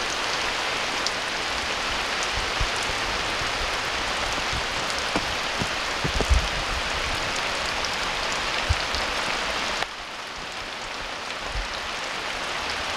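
Steady rain falling and pattering on surfaces, with a few scattered louder drips. The rain turns suddenly quieter about ten seconds in.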